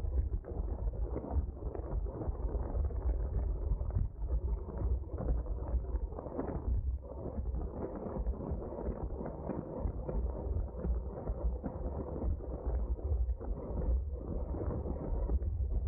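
Steady wind buffeting on the microphone of a racing cyclist's onboard camera, with road bike tyre and drivetrain noise underneath, riding at race speed in a pack.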